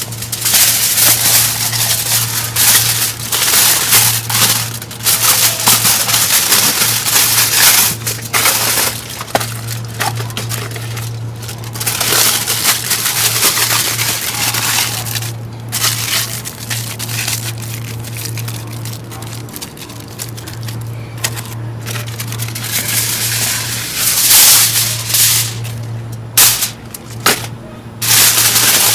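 Aluminium foil crinkling and crumpling in irregular bursts as it is wrapped around an ear of corn.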